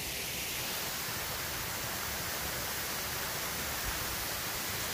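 Small waterfall spilling over a stone weir into a reservoir: a steady, unbroken rush of water.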